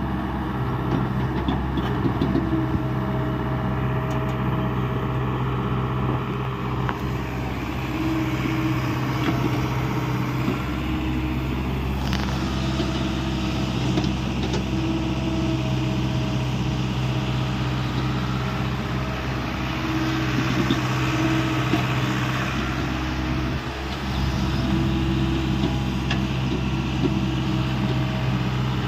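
Hyundai 85A mini excavator's diesel engine running steadily, with a higher whine that swells and fades several times and an occasional sharp knock.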